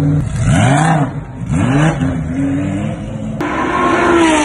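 Race car engine blipped twice, the revs rising and falling each time, then after a sudden cut running at steady high revs out on the track, its pitch sinking slightly.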